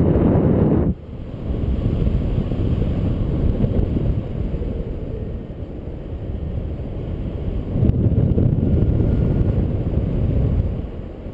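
Wind buffeting the microphone of a paraglider pilot's camera in flight: a low rushing rumble that drops suddenly about a second in, then builds again and rises and falls.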